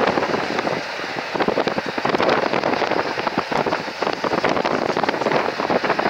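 Union Pacific double-stack container train rolling past: a steady rush of steel wheels on rail, thick with quick clicks and knocks from the cars.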